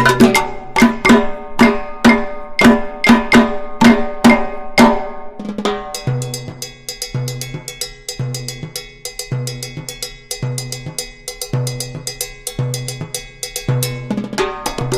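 Background music with a steady drum and percussion beat over a repeating bass line; the drum hits are heavier in the first half, then the beat thins to lighter, quicker percussion.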